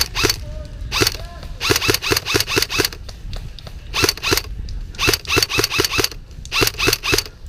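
Airsoft guns firing sharp cracking shots, some single and some in quick strings of about four or five a second, with short pauses between strings.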